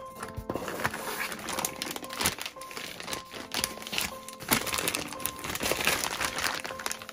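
Packaging being handled and unwrapped: irregular crinkling and rustling with many small crackles, over background music.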